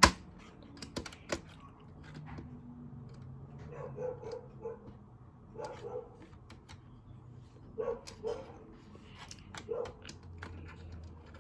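Tweezers clicking and scraping against the plastic Operation game board and its pieces, many separate taps. Several short pitched sounds come in pairs about two, four and six seconds in.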